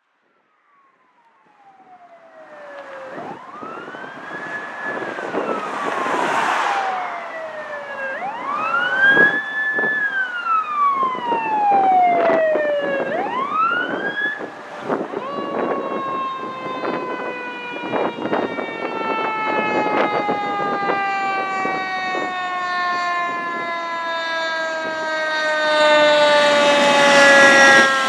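Fire engine siren fading in, sweeping up and down in pitch three times, then one long slow fall in pitch, with the engine's noise growing as it approaches and loudest near the end as it goes by.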